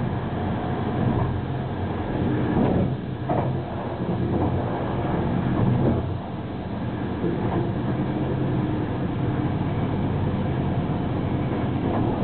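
Running noise of an ÖBB Eurocity train at about 200 km/h, heard from inside: a steady rumble and hum of the wheels on the rails, with a few short louder swells.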